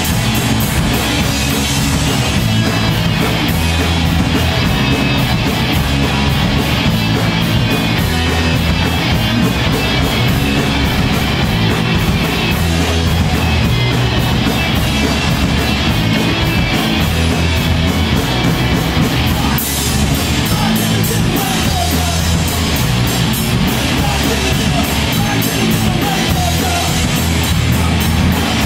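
Live rock band playing loud, fast, heavy music on electric guitars and a drum kit, with a steady run of cymbal hits over the band.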